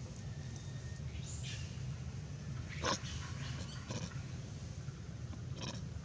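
A few short animal calls: a high falling squeal, then a sharp, louder call about three seconds in and two fainter ones after it. A steady low rumble runs underneath.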